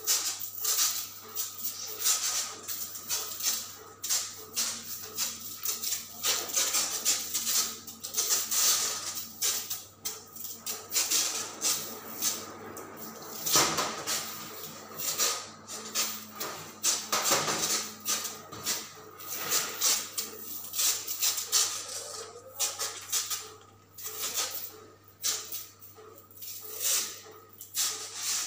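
Cockroach insecticide sprayer hissing in short, irregular bursts, over a steady low hum.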